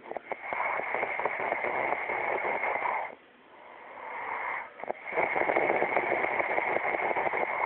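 A sleeper snoring: two long rattling snores of about three seconds each, with a softer breath between them.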